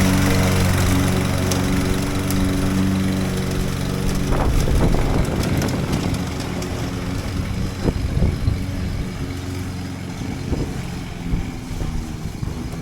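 A new walk-behind gasoline push lawn mower's engine running steadily. It grows fainter after about four seconds, with wind noise over it.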